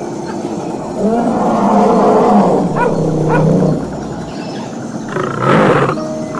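A recorded tiger roar played as a sound effect. One long roar starts about a second in, and a shorter one comes near the end.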